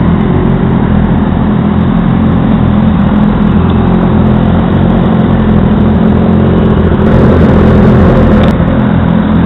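Several sport motorcycle engines running together in a pit lane, a steady loud engine drone that swells a little about seven seconds in.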